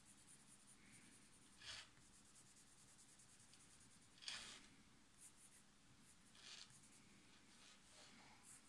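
Faint scratching of a black colored pencil shading on sketchbook paper in quick, short strokes, with three brief soft whooshes a couple of seconds apart.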